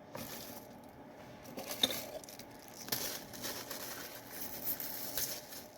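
Packaging of a snack sweet potato pie being opened: irregular crinkling and tearing with a few sharp clicks.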